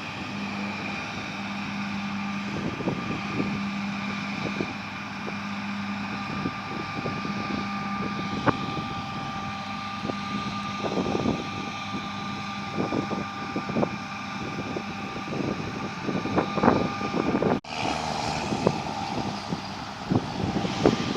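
Large John Deere diesel farm machine running steadily under load, its engine hum steady with irregular thumps through it. The sound drops out abruptly about three-quarters of the way in and resumes changed.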